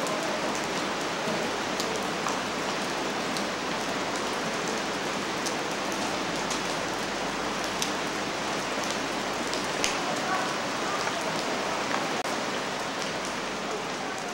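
Steady rain, a continuous hiss with scattered sharp ticks of drops landing.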